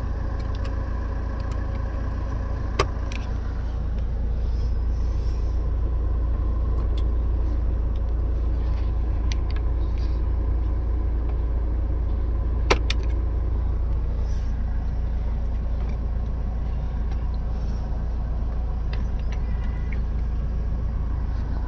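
A steady low rumble with two sharp clicks, about three seconds in and again about thirteen seconds in, and a few fainter ticks: plastic latches and the connector being worked as a steering-wheel spiral cable (clock spring) is unclipped from the column.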